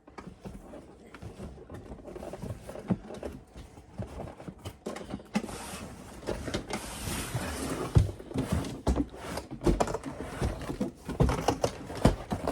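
Hand-handling noises of unboxing: rustling packaging and scattered knocks and thumps as an RC car is lifted out of its box, busier and louder in the second half.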